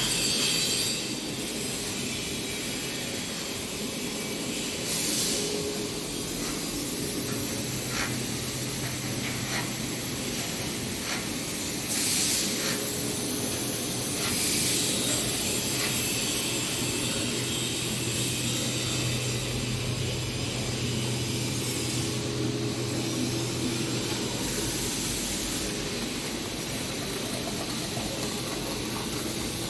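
3D printer filament extrusion line running: a steady machine hum under a constant hiss, with several short louder hissing swells.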